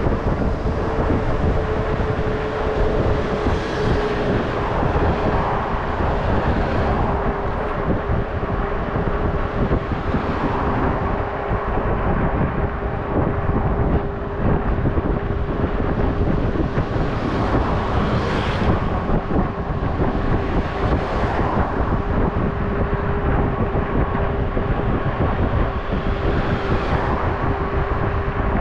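Steady wind and road noise on a handlebar-mounted camera while riding through city traffic, with a constant mid-pitched hum throughout. Vehicles swish past now and then.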